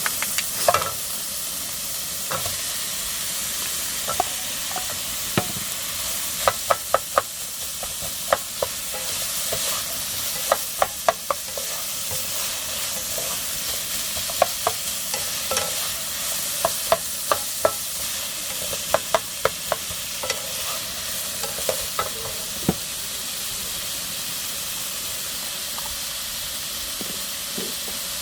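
Food sizzling in a frying pan while a spatula stirs it, knocking against the pan in quick clusters of clicks over a steady frying hiss. The clicks thin out near the end, leaving the sizzle.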